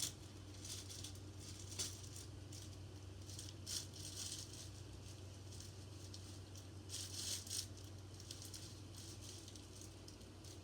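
Small beads rattling in short, scattered bursts as they are poured and shaken into a slime container, loudest about seven seconds in.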